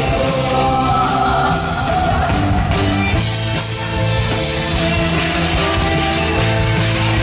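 Live band playing a rock ballad, with electric guitar and a drum kit.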